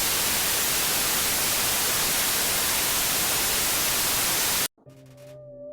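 Loud, steady white-noise static like a dead TV channel, cutting off suddenly near the end. Faint sustained synth tones come in right after.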